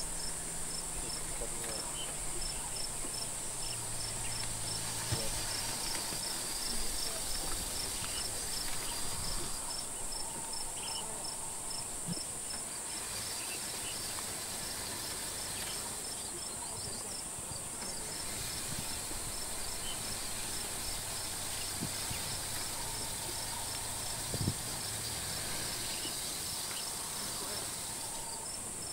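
Insect chorus in the bush: a steady high-pitched drone with a fast, regular chirping over it that stops twice for a few seconds.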